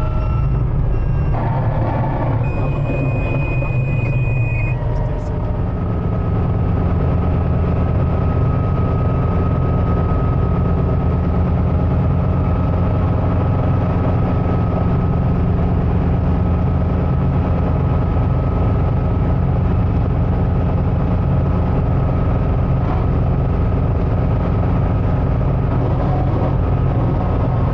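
Guimbal Cabri G2 helicopter heard from inside the cockpit, its Lycoming four-cylinder piston engine and rotors running steadily. A high steady beep sounds for about two seconds, a couple of seconds in.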